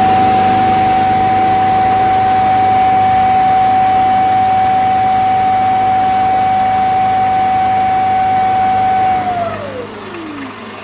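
Shark Matrix self-emptying base's suction motor running with a loud, steady whine as it empties the robot vacuum's dust bin, then spinning down with a falling pitch about nine seconds in.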